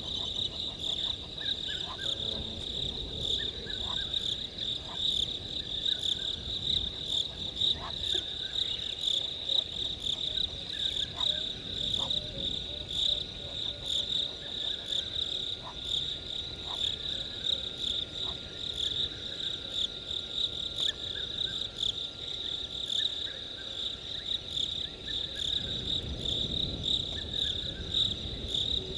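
Night chorus of crickets: a steady, shrill, pulsing trill, with faint short calls from other animals scattered through it.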